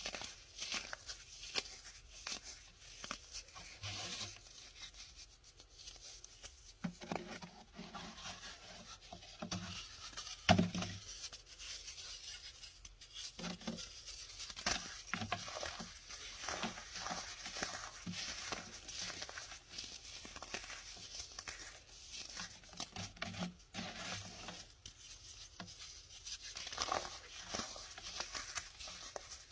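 Fingers crushing and breaking hardened chunks of dried baking soda: irregular, crisp, glassy crunches and crackles, with one louder crunch about ten seconds in.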